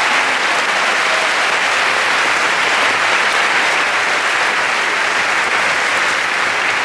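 Audience applauding: loud, steady, dense clapping.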